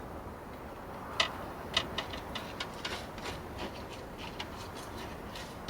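Faint, irregular light ticks and clicks, roughly one to three a second, over a quiet background hum.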